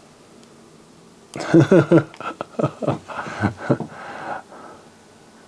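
A man's voice muttering or vocalizing for about three seconds, starting a little over a second in, without clear words.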